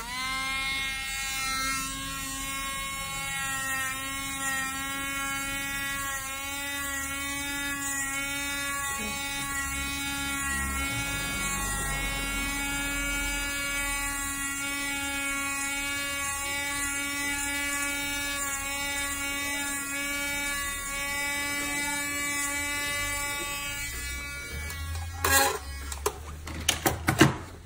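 Electric nail drill whining steadily as its ceramic bit grinds a toenail, its pitch wavering slightly. The drill stops near the end, and a few loud sharp knocks and clicks follow.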